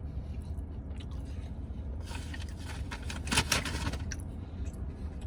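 A man chewing and eating close to the microphone, with a burst of crunching and scraping about two to four seconds in, over a steady low hum.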